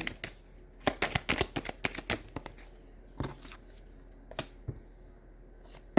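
Tarot cards being shuffled: a quick run of crisp card flicks lasting about a second, followed by a few single card clicks as cards are pulled.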